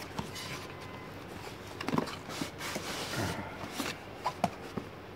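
Cardboard packaging being handled: paper and card rustling and sliding as the inner box comes out of its sleeve, with a few light taps and clicks.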